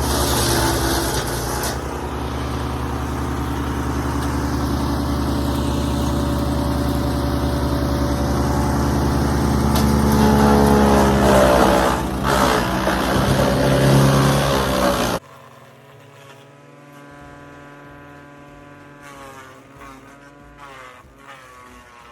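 MechMaxx wood chipper's gas engine running hard as branches are fed in, its pitch dipping under load a few times between about ten and fourteen seconds in. It cuts off suddenly about fifteen seconds in, leaving a faint buzz.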